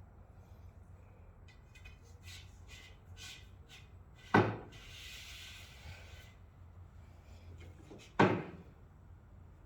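Two sharp knocks about four seconds apart, each with a short ring-out. Light clicks come before them, and a brief scraping rustle follows the first.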